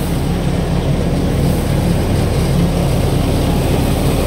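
Mahindra tractor engine driving a Vishwakarma thresher at a steady speed while dry fenugreek plants are fed in: a steady low engine drone under the even noise of the threshing machine.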